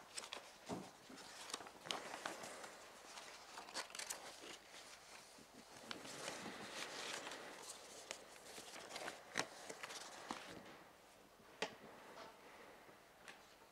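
Faint footsteps, light knocks and paper rustling from people moving about and handling ballot papers as the vote count begins.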